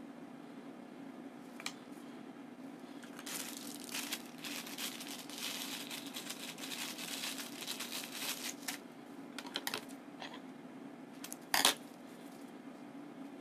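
Handling noise from gloved hands working with plastic syringes on brown paper: a long stretch of crinkly rustling and small clicks, then a few scattered clicks and one sharp knock near the end, over a steady low room hum.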